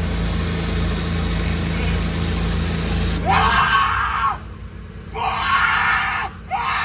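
Pressure washer running with its high-pressure spray hissing. The spray cuts off about three seconds in, leaving the engine running at a lower hum. Over the engine come three loud, drawn-out vocal calls like screaming, each about a second long.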